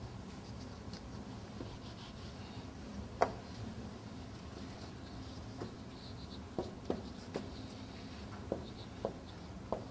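Marker writing on a whiteboard: faint squeaks of the pen strokes and short taps as the tip meets the board. The loudest tap comes about three seconds in, with a run of smaller taps in the second half.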